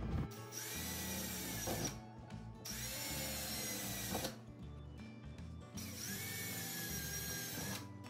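Handheld power drill boring small pilot holes into the top of a steel door, in three separate runs of about two seconds each; each run opens with the motor whine rising as it speeds up, then the bit grinds into the metal.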